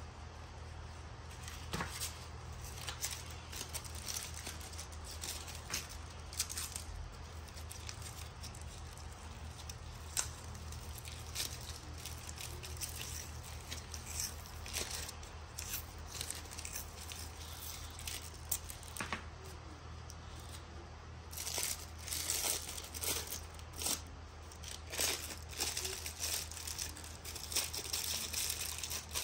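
Crinkling of a cellophane firework wrapper and rustling of masking tape being handled. The crackles are scattered at first and come thicker in the last several seconds, over a steady low hum.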